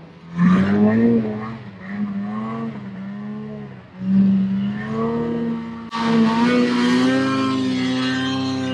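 Ski-Doo Summit two-stroke snowmobile engine revving in bursts as the sled ploughs through deep powder, its pitch rising and falling with the throttle. About six seconds in, the sound changes suddenly and the engine holds a steadier, higher pitch.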